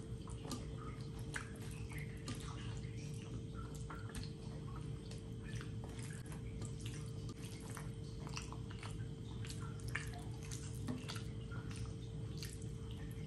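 Wet, sticky clicks and squelches of a bare hand mixing rice with curry on a plate, together with close-up mouth sounds of chewing a mouthful of curried rice.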